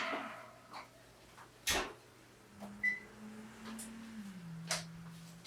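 Kitchen handling sounds after a pan comes out of the broiler: the clatter of the pan being set down dies away, then come a couple of sharp knocks. A short high beep sounds near the middle, and a low hum starts and drops slightly in pitch near the end.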